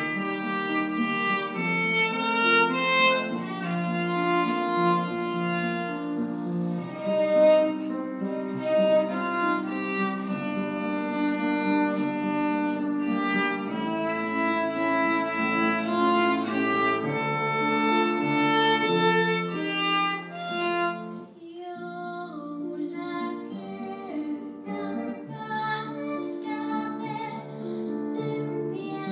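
A violin plays a melody over piano accompaniment. About two-thirds of the way through, the violin stops, and a girl begins singing over the piano.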